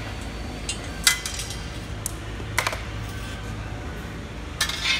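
A few sharp metallic clinks, about one and two and a half seconds in, from the steel blade and its nuts and bolts being handled as the blade comes off a Swenson roofing shear, over a low steady hum. A short rattle near the end.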